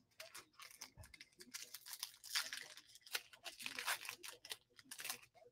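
A trading-card pack wrapper being torn open and crinkled by hand: a run of faint, irregular crackles and short rips.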